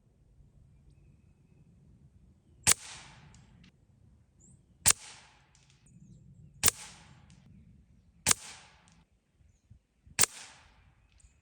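A Gamo Whisper Swarm Mach 1 .22 air rifle firing five shots about two seconds apart. Each is a sharp crack with a short fading tail.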